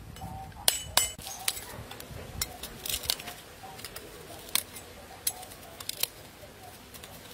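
Cleaver paring the thick rind off a round green fruit: a string of crisp cutting clicks and crunches at irregular intervals, several in the first half, then a few more spaced out.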